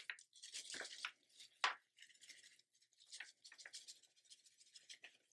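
Faint, scattered rustles and crinkles of a plastic DTF transfer film sheet being tipped back and forth by gloved hands, with adhesive powder sliding across it. The loudest crinkle comes about a second and a half in.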